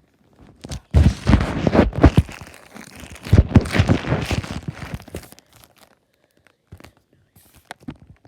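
Slime being squeezed and squished close to the microphone: a dense run of crackles and pops for about four seconds, then a few scattered clicks near the end.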